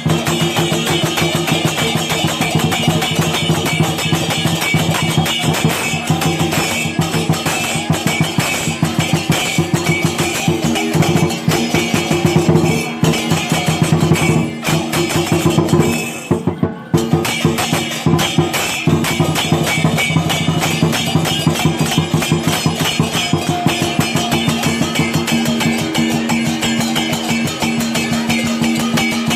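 Chinese dragon-dance percussion ensemble playing fast, continuous drum and cymbal strokes over steady ringing tones, with a brief break about halfway through.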